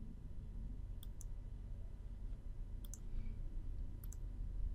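Computer mouse clicking: three quick pairs of clicks, about a second or two apart, over a low steady hum.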